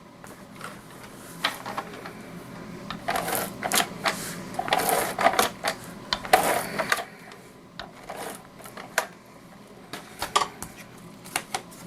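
Cardstock pieces being handled and layered together on a work surface: irregular paper rustles and scrapes, busiest in the middle, with a few sharp taps and clicks near the end.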